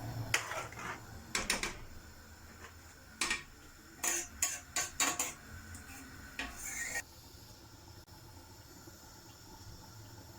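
Metal kitchenware clinking and knocking against a cooking pot: a series of sharp clinks over the first seven seconds, then only a faint background with one more light knock.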